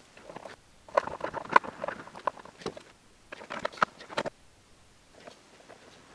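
Two short flurries of small clicks and rattles from a screwdriver and small hardware being handled, one about a second in and another past three seconds.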